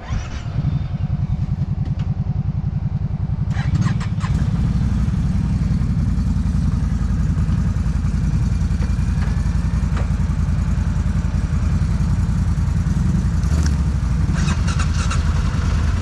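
ATV engine running steadily close to the microphone, with even firing pulses; it gets louder about four seconds in and holds that level.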